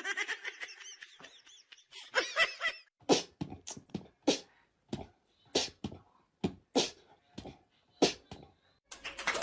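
A dog making a run of short, sharp huffs or barks, roughly two a second, after a few high squeaky sounds in the first seconds.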